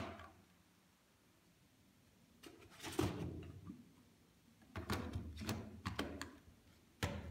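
Plastic knocks, scrapes and clicks as a DJI Phantom 4 Pro flight battery is handled, set into the foam carrying case and pushed into the drone's battery bay. There is a cluster of knocks about five to six seconds in and a single sharp click near the end.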